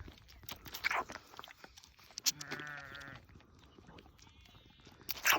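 A sheep bleats once, a wavering call of under a second about halfway through. Several sharp clicks or knocks come around it, the loudest just before the bleat.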